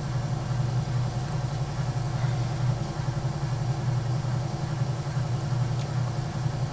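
Electric potter's wheel motor running at a steady speed, a constant low hum, with a couple of faint ticks near the end.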